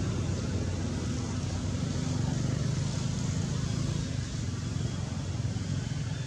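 Steady low outdoor rumble with a faint even hiss above it, unchanging throughout.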